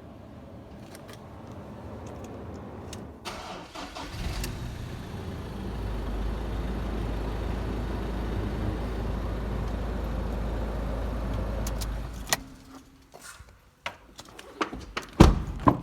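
Ford Ranger's 2.2-litre four-cylinder turbodiesel cranked and started about three to four seconds in, idling steadily for about eight seconds, then switched off. A few clicks and knocks follow near the end.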